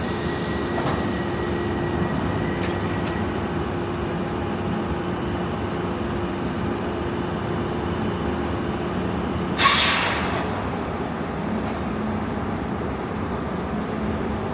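London Underground train standing at or moving along the platform with a steady running hum, then a sudden hiss of compressed air about ten seconds in that dies away within a second or so.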